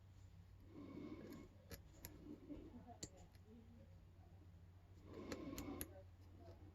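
Faint metallic clicks and scraping from a lock pick working the pins of a small brass padlock. There are a few sharp ticks and two short spells of scratchy rattling, about a second in and again around five seconds in.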